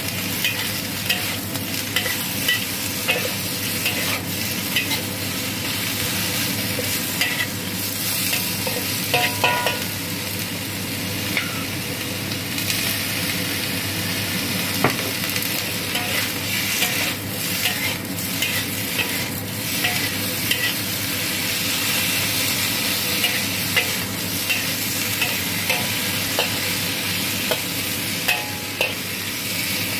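Red onion chunks and minced pork sizzling in a hot wok, with a metal spatula repeatedly scraping and clinking against the pan as the stir-fry is tossed.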